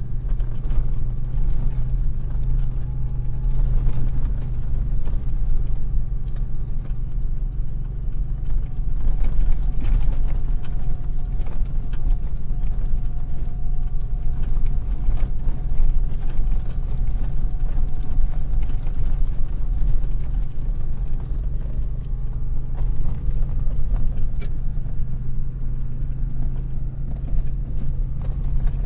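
Steady low engine drone, with light knocks and rattles scattered over it.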